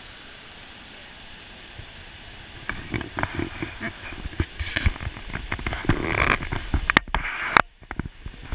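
Steady rush of the river rapids and waterfall, overlaid from about three seconds in by irregular thumps, rumbling gusts and crackle of wind and handling on the action camera's microphone as it is moved. Two sharp clicks about seven seconds in are the loudest sounds.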